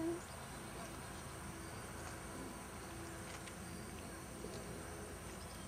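Faint outdoor background: a short hoot-like tone at the very start, then a low steady hum and a few faint ticks.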